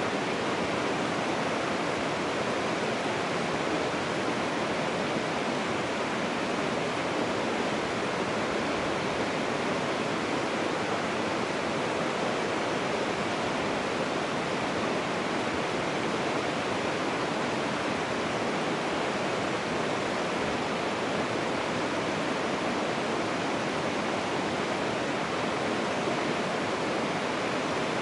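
Steady, even rush of running stream water.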